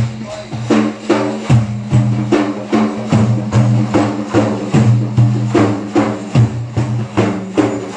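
Instrumental passage of a sung Iraqi praise song: a steady percussion beat of about three strikes a second over held low notes.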